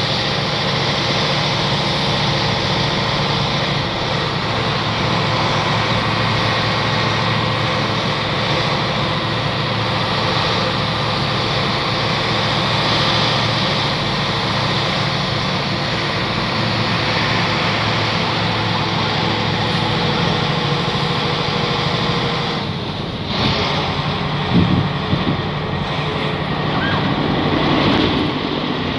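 A moving vehicle heard from inside the cabin: steady engine hum and road noise. The sound changes a little over three-quarters of the way through, followed by a few brief knocks.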